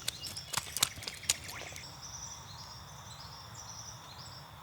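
A few sharp clicks and taps in the first second and a half. Then a high, repeating chirping call in short stepped phrases sets in about two seconds in and carries on over a faint low rush of creek water.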